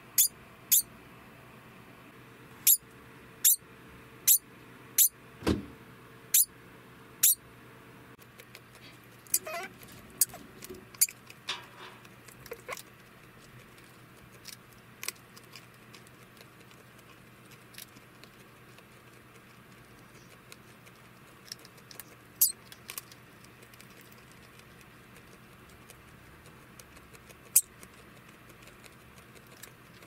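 Male degu giving its alarm call, the warning call of a male after mating: short, sharp, high-pitched calls, about one a second for the first seven seconds, then a few softer sounds and single calls spaced several seconds apart.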